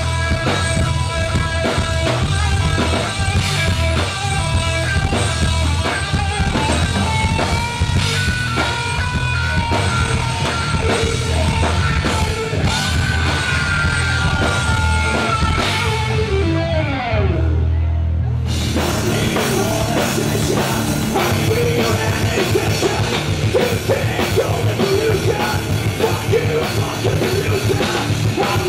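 Live rock band playing loudly, an electric guitar holding and bending long lead notes over bass and drums. About 17 s in a guitar note slides down, and about a second later the full band comes back in with crashing cymbals, denser and brighter.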